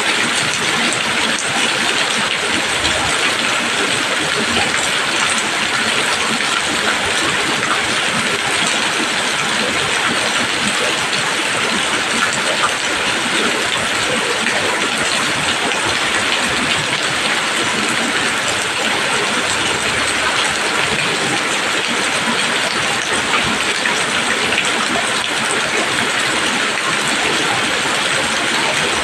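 Steady rain falling on leaves: a dense, even hiss of countless drops, with no thunder or other distinct events.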